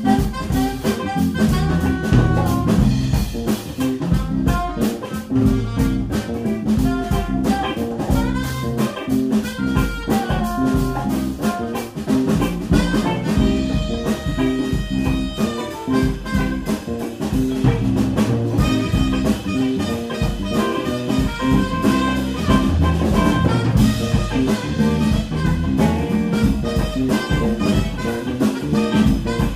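A jazz band playing live: horns carry the melody over electric bass and a drum kit keeping a steady groove.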